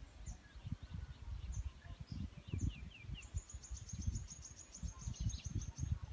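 Wild birds chirping outdoors: scattered short high notes, a quick run of falling notes about two seconds in, and a rapid high trill through the second half. Under them are irregular low thumps and buffeting, which are the loudest sound.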